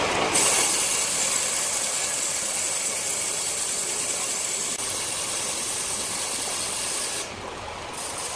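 Large circular saw cutting through a rosewood block: a loud, steady, hissing noise of the blade in the wood that starts abruptly, its high part dipping briefly near the end.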